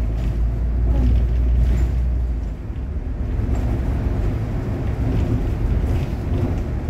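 City bus driving along a street, heard from inside at the front: steady drive and road noise with a deep drone that eases off about two and a half seconds in.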